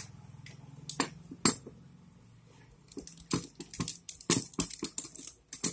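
Sharp metallic clinks and hammer taps on a steel tube set over a valve spring on a Bajaj Boxer cylinder head, pressing the spring down so the valve's lock collets seat. A few separate clinks come first, then a quick run of taps from about three seconds in.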